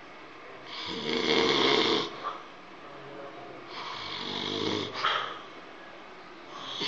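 A person snoring, with two long snores about three seconds apart and a third beginning near the end; the second swells as it goes.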